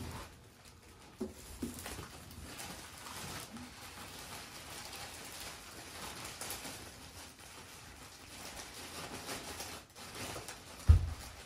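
Plastic wrapping bag crinkling and rustling as it is handled and pulled off a speaker, with a single low thump near the end.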